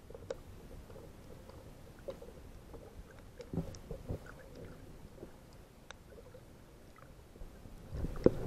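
Faint, muffled water and handling noise with scattered small clicks, a louder knock about three and a half seconds in, and heavier bumps starting near the end.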